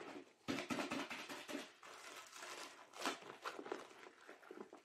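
Diamond painting canvas and its clear plastic film crinkling and rustling as it is rolled back the other way by hand, with louder crackles about half a second in and again near three seconds.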